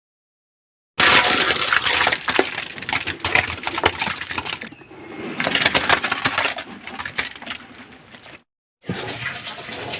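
Irregular clattering, crunching and knocking of building materials being handled during construction work, starting about a second in and cut off briefly near the end.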